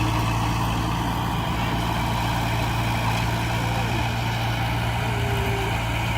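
Heavy diesel engine of earthmoving machinery running at a steady, even speed, with a deep constant hum and no revving or impacts.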